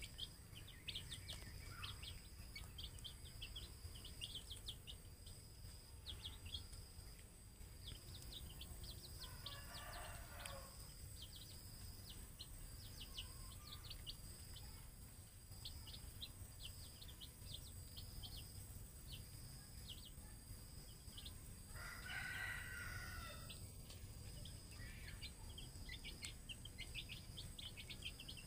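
Young domestic chicks peeping: a steady stream of short, high, falling peeps, several a second. Twice, about ten seconds in and again a little past twenty, a longer, lower call rises above them.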